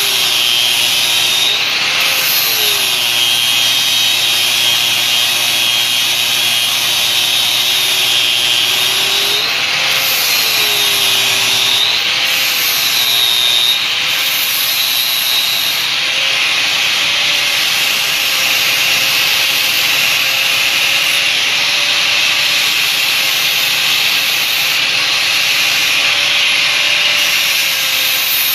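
Power tool running steadily while machining a shift knob, with a continuous grinding, sanding-like hiss of material being worked; the motor's whine rises briefly several times as the load on it changes.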